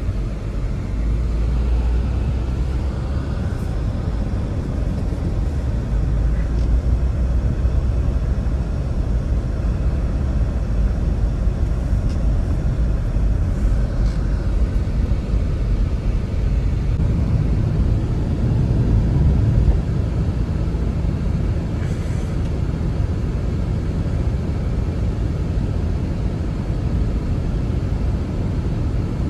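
Steady low roar of blizzard wind, without pauses, with a few faint clicks.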